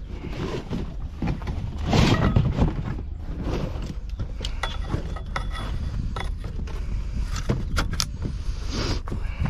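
Aluminium oar shaft sections clinking and knocking as they are handled and slotted together, with a cluster of sharp metallic clicks between about four and eight seconds in.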